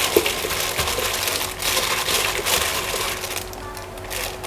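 Repeated crinkling, crunching noises in short bursts, about one or two a second.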